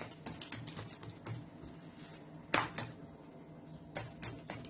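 Hands patting and pressing a buttered square of croissant dough flat on a marble countertop: a string of light taps, with one sharper knock about two and a half seconds in.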